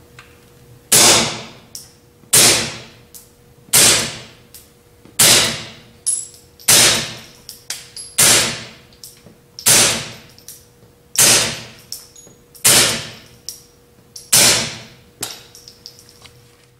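Ten suppressed .22 LR pistol shots, about one every second and a half, from a Ruger pistol with a Tactical Solutions Pac-Lite upper and a stainless steel SilencerCo 22Sparrow suppressor, fired dry with CCI standard velocity ammunition. Each shot is followed by a fainter tick.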